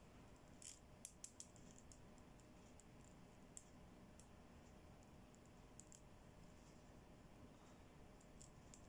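Faint, scattered clicks and taps of hard plastic toy bangle bracelets knocking together as they are handled, a quick cluster about a second in and single clicks later, over quiet room tone.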